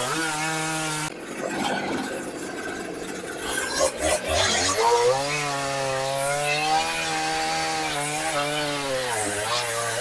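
Gas chainsaw running flat out, cutting deep into a large maple log, its engine note sagging and recovering under the load. About a second in the engine tone drops out for a few seconds, leaving a rougher cutting noise, then comes back.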